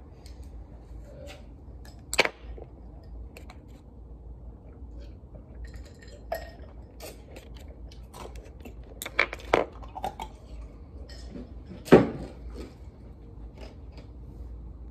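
Scattered clicks and knocks of small objects being handled and set down, with louder knocks about two, nine and twelve seconds in, over a steady low hum.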